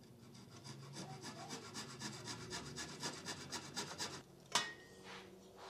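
A wooden dowel being worked into a drilled hole in a knotty alder frame, wood rubbing on wood in a quick, even series of scraping strokes. A single sharp knock comes about four and a half seconds in.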